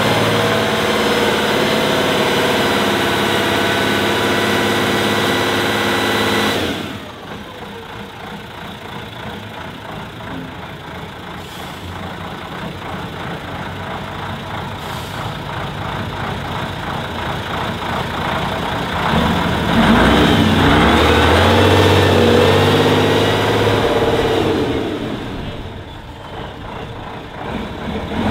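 Engine of a six-wheel-drive trial truck working hard as it crawls through deep mud, revving up and down. It runs loud at first, drops off suddenly about a quarter of the way in, then builds back up to a loud, low stretch past the middle before easing and rising again near the end.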